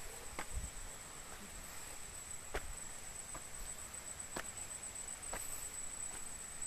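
Footsteps climbing concrete steps, sharp irregular clicks a second or two apart, over a steady high-pitched insect drone.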